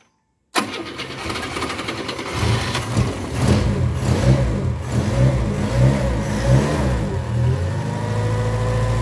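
1971 Ford Corcel's four-cylinder engine catching and running unevenly in repeated surges of revs, then settling into a steady idle near the end. The helper blames the hard start on air in the fuel line.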